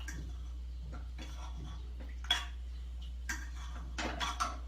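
Potato masher knocking and clinking against a pressure-cooker pot as boiled potatoes are mashed: scattered knocks, one sharper a little over two seconds in and several more near the end, over a low steady hum.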